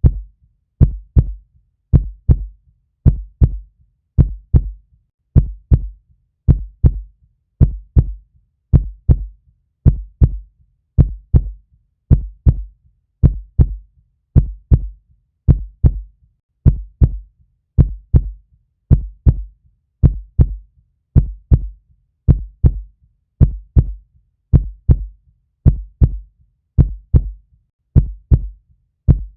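Heartbeat sound: a steady, even lub-dub, two low thumps close together repeating about once a second.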